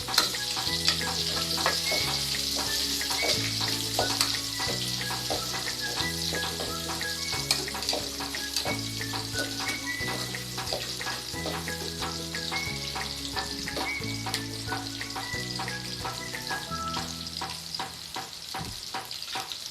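Onion and ginger sizzling in hot oil with browned garlic, with frequent clicks of a utensil stirring against the pan. Background music with a steady bass line plays under it, and the sizzling eases near the end.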